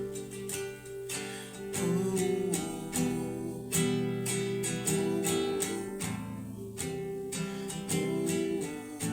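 Acoustic guitar strummed in a steady rhythm, playing chords alone without singing.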